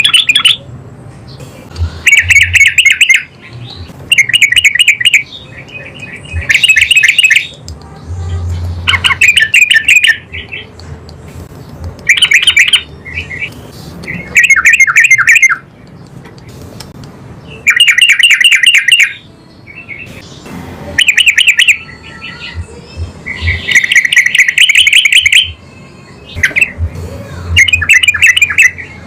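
Yellow-vented bulbul (trucukan) singing loud, bubbly phrases, about one every two to three seconds, each lasting a second or two.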